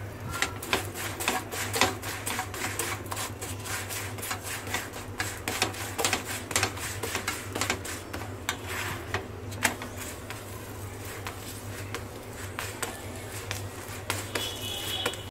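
Wooden spatula tapping and scraping on a flat tawa griddle as a chapati is pressed and turned, in many quick irregular clicks. A steady low hum runs underneath.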